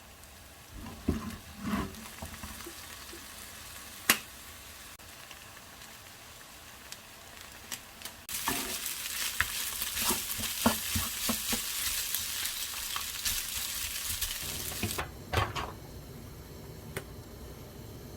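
A few knocks, then food sizzling in a frying pan, with the clicks and scrapes of a utensil stirring it. The sizzle starts suddenly about halfway through and cuts off a few seconds before the end.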